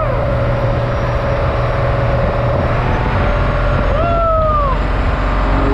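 An engine running steadily under a loud rushing noise, with a single falling tone about four seconds in.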